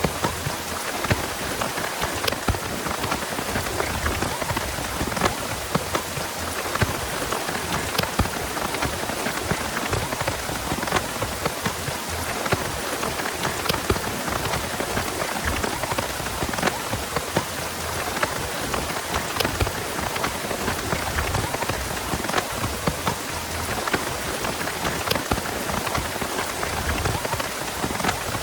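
Heavy rain falling steadily, with many sharp individual drop hits standing out from the constant hiss.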